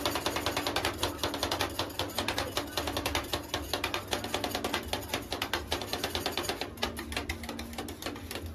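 Fast, dense, irregular clicking or tapping, many clicks a second, over faint music.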